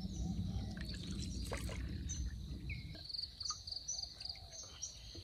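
Insects chirping steadily in a high, thin band, turning into quick pulsed chirps after about three seconds, with a few higher chirps scattered through. Underneath is a low rustling noise that fades about three seconds in.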